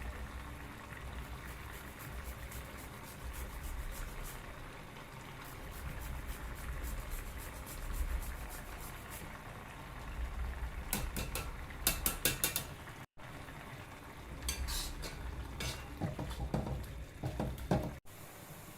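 A metal spoon stirring and scraping food in a cooking pan, with a light sizzle and a low steady rumble underneath. There are quick runs of metal clicks about two-thirds of the way in and again near the end.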